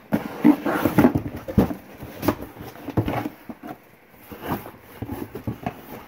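Items knocking and clattering together as a box of odds and ends is rummaged through and emptied, in an irregular run of knocks, busiest in the first few seconds.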